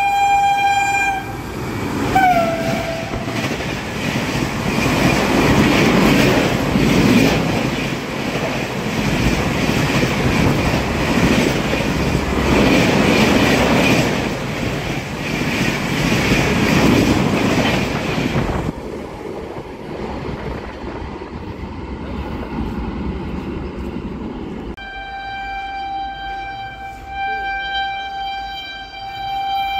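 Electric locomotive's horn sounding as an express train runs through at speed, its pitch dropping briefly as the engine passes, then the coaches rushing by with a swelling, rhythmic wheel clatter that cuts off suddenly after about seventeen seconds. A lower rumble follows, and about five seconds before the end a second approaching train's horn sounds steadily.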